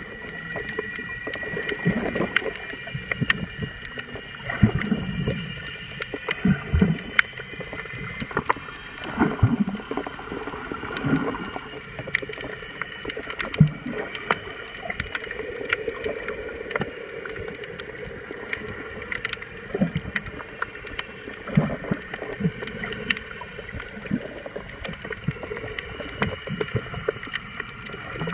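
Underwater sound picked up by a camera below the sea surface: a steady high whining hum with irregular low thumps and knocks of moving water, the thumps strongest in the first half.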